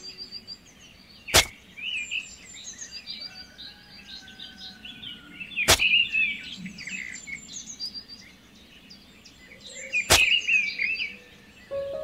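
Small songbirds chirping and twittering in quick, high, gliding notes, broken by three sharp clicks about four seconds apart.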